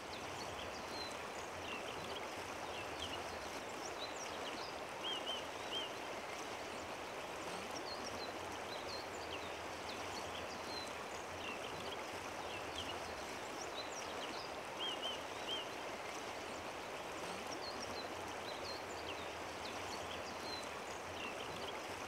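Steady rush of flowing water, with small birds chirping now and then in short high calls, including a quick three-note call twice.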